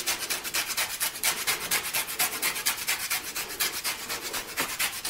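A lemon being zested on a metal rasp grater: quick, even scraping strokes, several a second.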